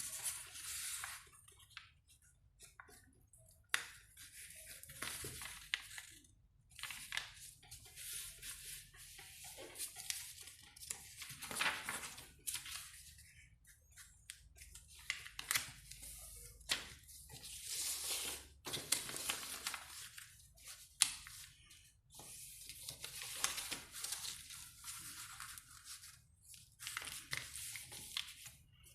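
A sheet of paper being handled and folded into a paper airplane: irregular rustling and crinkling in short bursts, with sharp crisp snaps as folds are creased.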